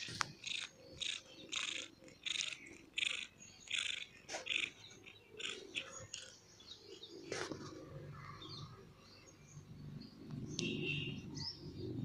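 Domestic cat sniffing right at the microphone: a quick series of short, breathy sniffs about two a second, giving way to a low, steady rumble in the second half.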